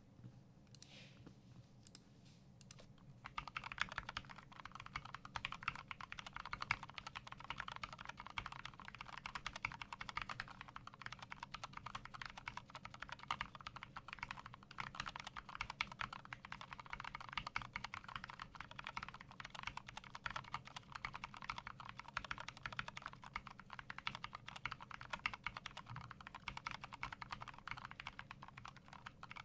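Typing on a YMDK64 split 60% mechanical keyboard with lubed Gateron Brown KS-3 tactile switches, an aluminium plate and no case foam. A few separate key presses come first, then fast, continuous typing starts about three seconds in.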